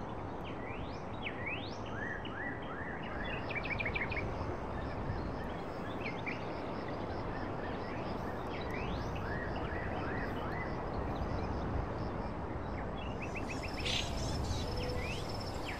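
Nature-ambience background track: birds chirping, many quick rising calls and a few short rapid trills, over a steady rushing noise.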